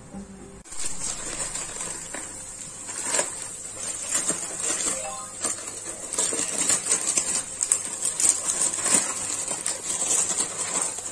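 Crinkling and rustling of a plastic instant-noodle packet being handled and snipped open with scissors, a dense crackle of many small crackles that starts abruptly under a second in.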